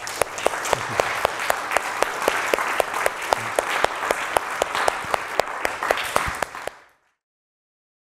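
Audience applauding, with one clapper close to the microphone standing out in steady sharp claps, about four a second. The applause stops abruptly about seven seconds in.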